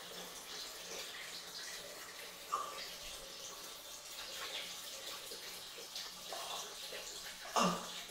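Water tap running full into a plastic wastebasket in a washbasin, filling it with cold water, a steady hiss. Two brief louder sounds cut in, the louder one near the end.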